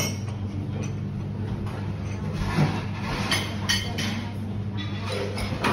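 Café background: a steady low hum under a few light clinks of tableware.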